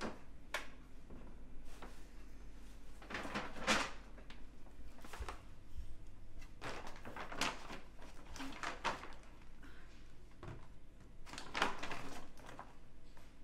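A door opening, then paper grocery bags rustling and crinkling in irregular bursts as things are rummaged through and lifted out of them.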